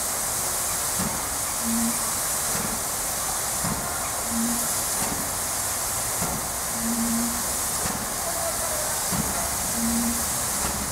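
OL49 steam locomotive standing in steam and hissing steadily, with a short low tone and a faint knock recurring about every two and a half seconds.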